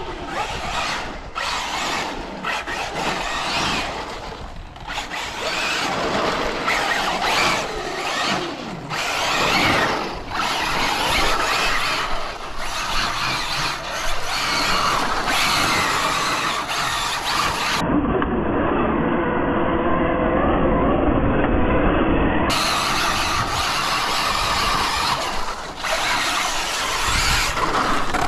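Arrma Infraction RC car's brushless motor whining and its off-road buggy tyres squealing and skidding on concrete as it accelerates and drifts, the sound swelling and fading with each run.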